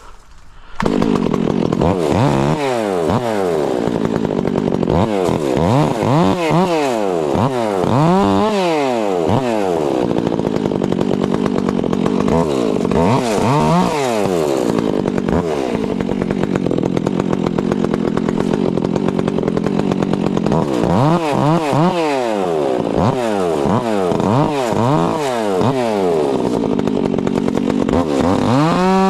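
Two-stroke chainsaw running hard while bucking a fallen tree top into lengths. It comes in suddenly about a second in, and its engine pitch repeatedly rises and falls as the throttle is opened and let off, with a few steadier stretches at high revs.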